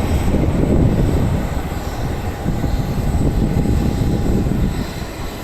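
Airplane taking off: loud, steady engine noise, mostly a deep rumble, easing slightly near the end.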